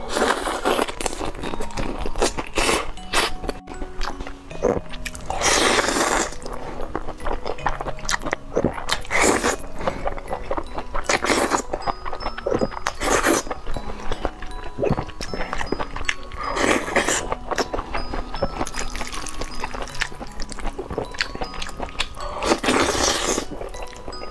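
Close-miked slurping and chewing of saucy noodles, with a loud slurp every two to four seconds and wet chewing between, over light background music with a simple melody.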